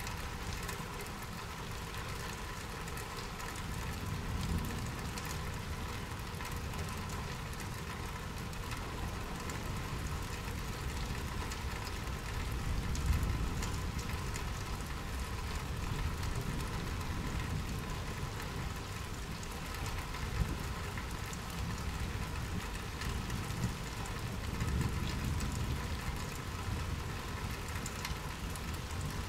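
Steady rain falling, recorded with a Blue Yeti microphone, with scattered drops ticking now and then. A low rumble swells and fades a few times underneath.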